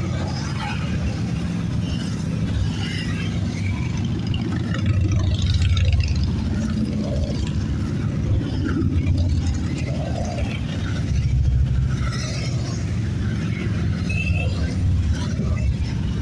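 A procession of motorcycles, including a three-wheeled trike, riding past one after another. Their engines make a low rumble that swells each time another bike goes by.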